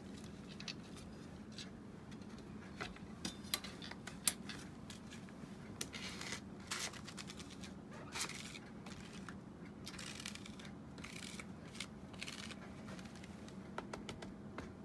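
Plastic card scraping and tapping across a stainless-steel capsule-filling plate, spreading powder into the open capsule bodies: faint scrapes with irregular light clicks.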